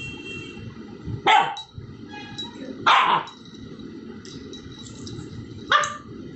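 Puppy barking three times, short barks a second or two apart, the middle one the longest, over a steady low background hum.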